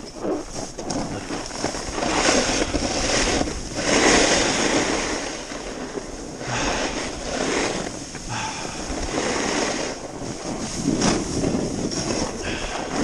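Edges hissing and scraping over snow during a downhill run, swelling and easing every second or two as the turns link, with wind rushing over the microphone.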